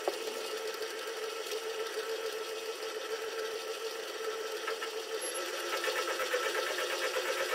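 Small bench-top metal lathe running, its motor and spindle gearing giving a steady whine while the carriage is wound by hand. From about six seconds in, a fast, even pulsing joins the whine.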